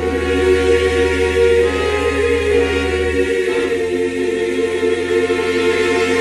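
Music: sustained choir-like vocal chords over a low bass note, which drops out about three seconds in.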